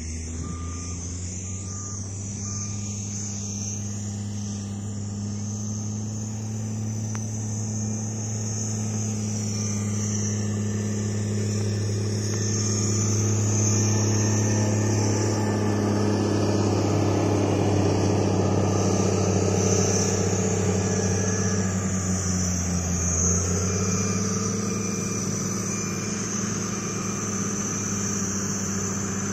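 Vehicle engines running steadily with a low hum, growing louder through the middle and easing off near the end, with a steady high-pitched whine over it.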